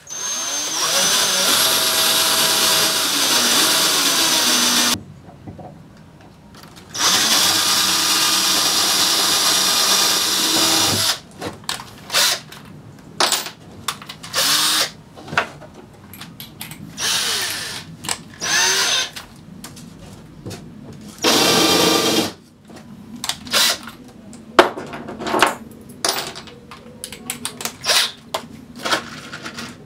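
Cordless drill running into the wooden gunwale and plywood hull. It goes in two long runs of about five and four seconds, then a string of short bursts, as holes are drilled and countersunk and screws are driven.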